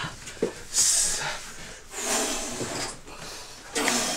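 A man breathing hard through a vigorous bodyweight workout, with three forceful huffing exhalations about a second and a half apart.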